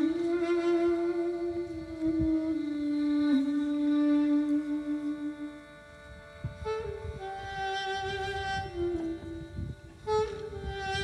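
Live bowed-string music, violin to the fore, playing slow, long held notes. The notes change about halfway through. From there on, uneven low rumbles of wind on the microphone run under the music.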